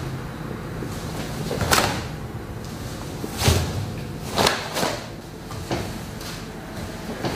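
Karate training strikes: about five sharp snaps of a karate gi as punches and blocks are thrown, irregularly spaced, one with a low thud under it.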